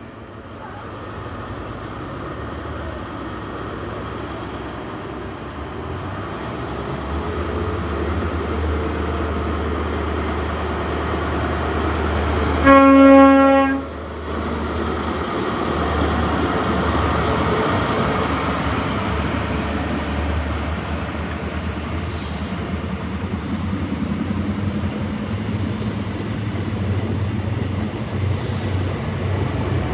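A Class 43 HST diesel power car, 43172, approaches and runs past, its engine hum and wheel noise growing steadily louder. It gives one single-note horn blast lasting about a second, roughly halfway through. Its coaches then keep rumbling past on the rails.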